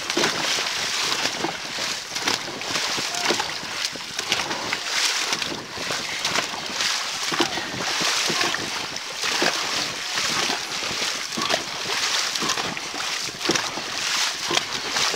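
Dragon boat crew paddling together: the paddles dig and splash into the water in a steady rhythm of about one stroke a second, over wind noise on the microphone.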